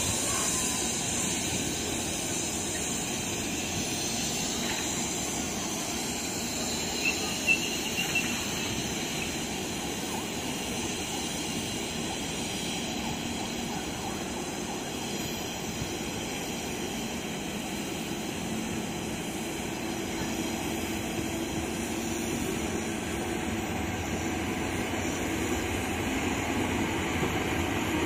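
Electric commuter train running on the line, a steady rumble and hiss with a brief faint high squeal about seven seconds in and a low hum growing toward the end.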